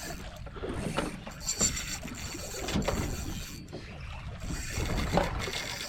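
Small boat at sea with water slapping against the hull and wind noise, plus a few irregular knocks.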